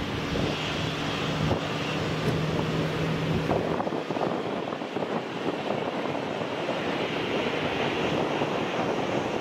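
Jet aircraft engine noise: a steady drone with a low hum that cuts off about three and a half seconds in, leaving a rough rushing noise.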